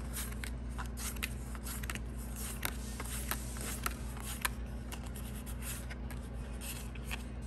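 Trading cards being handled: cards slid from the back of a stack to the front and laid on a table, giving many short papery flicks and scrapes at an uneven pace, over a steady low hum.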